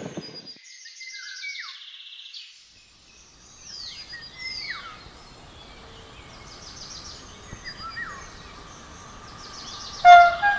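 Songbirds chirping and trilling over the faint low rumble of an approaching electric passenger train. About ten seconds in comes a short, loud blast of the electric locomotive's horn.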